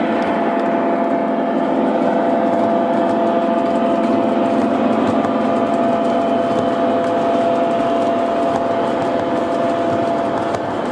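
Three-rail O gauge model freight train rolling past on the track: a steady hum of wheels and running gear with many light clicks of wheels over the rail joints.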